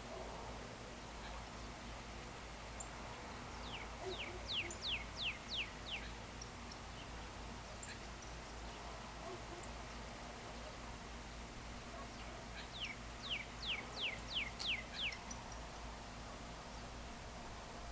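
A songbird sings twice. Each song is a quick run of about seven or eight sharp notes, each sliding steeply downward, lasting about two seconds. A steady low hum runs underneath.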